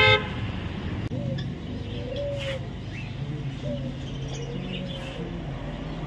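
Street traffic rumbling steadily, with a short, loud vehicle horn blast right at the start and faint bird chirps from caged birds scattered through.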